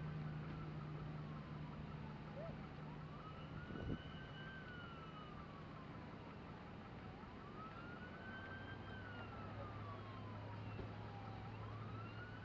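Faint emergency vehicle siren in a slow wail, its pitch rising and falling about every four seconds, over a low steady hum. A single knock about four seconds in.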